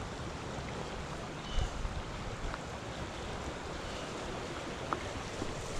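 Steady rush of flowing creek water, with wind buffeting the microphone and a couple of faint ticks.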